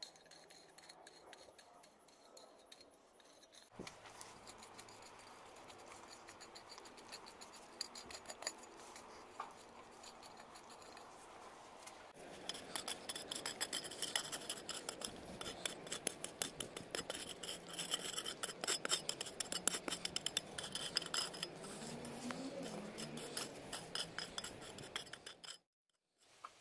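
Homemade metal garden-tool blades cut from an old frying pan scraping and chopping through dry, stony soil: a gritty scraping full of small clicks of grit and pebbles, louder and busier from about halfway. It cuts off abruptly near the end.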